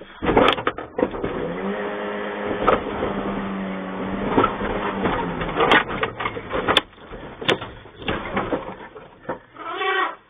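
An elephant pushing against the front of a delivery vehicle, heard from inside the cab: loud knocks and crunching as the sheet-metal bonnet is crumpled, with a steady drone through the middle and a short wavering pitched sound near the end.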